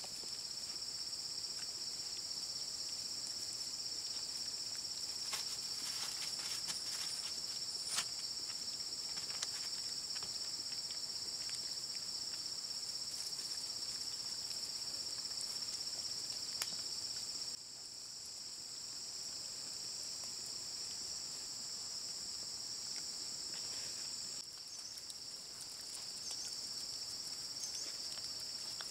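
Steady high-pitched chorus of insects, two constant shrill bands, with a few light ticks and rustles in the first third; the chorus drops a little about two-thirds of the way through and comes back.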